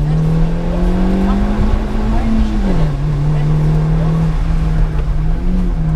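Opel Corsa C GSi rally car's four-cylinder engine running hard on a special stage: the engine note climbs slowly, drops sharply a little under three seconds in as the driver lifts or shifts up, then holds steady, with a brief rise near the end.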